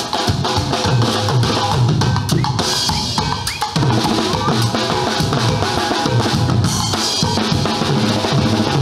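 A band on a passing river boat playing a steady, upbeat rhythm on a drum kit with cymbals and other drums.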